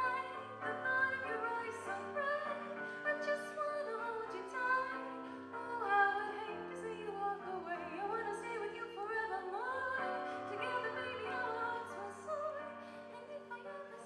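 Live band music: a woman singing lead, with other voices joining in, over a keyboard and a low line that steps from note to note.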